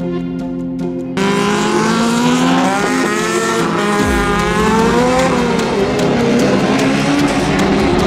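Background music for about the first second, then several autocross race cars' engines revving hard, the pitch climbing and dropping with gear changes, turning into a denser, rougher engine noise as the cars race together.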